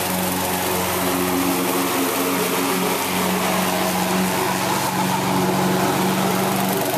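Gasoline walk-behind lawn mower engine running steadily under way.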